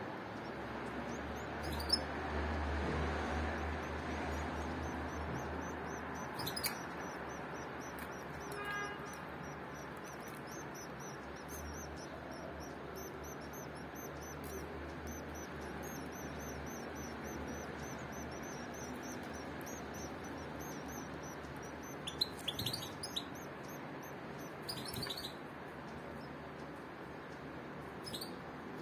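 European goldfinches chirping: a long run of faint, rapid, high-pitched peeps, with a few brief louder chirps about 2, 7, 22 and 25 seconds in, over a steady background hiss.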